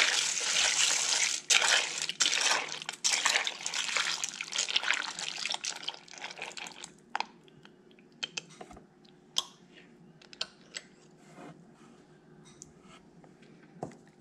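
A spoon stirring dry pasta shells into tomato sauce and cheese in a slow cooker's stoneware crock: wet squelching and scraping for about six seconds. Then it goes quieter, with a few scattered light spoon clicks and taps.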